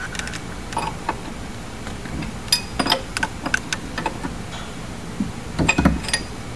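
Metal clicks and clinks of a 15/16-inch open-end wrench fitting onto and turning the transmission mount jam nuts as they are tightened to lock the engine's alignment. The clicks come in two clusters, about two and a half seconds in and again near the end, over a steady low hum.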